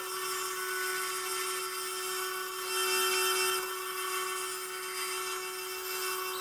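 Electric grinder running steadily while a lawn mower blade is ground to sharpen it, the grinding hiss swelling and easing every second or two as the blade is worked against the wheel.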